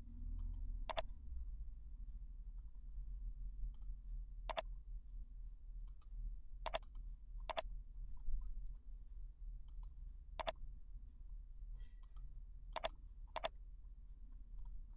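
Computer mouse button clicks: about seven short, sharp clicks, spaced unevenly, over a faint low hum.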